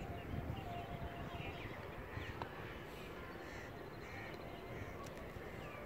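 Faint bird calls, a series of short calls spaced roughly a second apart, over a low background rumble.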